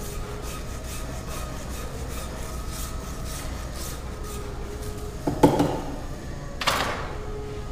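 A flat metal rasp scraping across the dry plaster positive mold of an above-knee prosthetic socket, in quick repeated strokes about two or three a second, shaving down the posterior lateral wall. About five seconds in comes a louder knock, and a second later a sharper, louder scrape.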